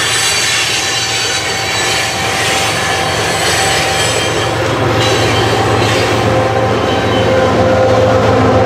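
Freight train tank cars rolling past on steel rails with high-pitched wheel squeal. They are followed about halfway through by a trailing GE ES44AC diesel locomotive, whose steady engine hum grows in the second half.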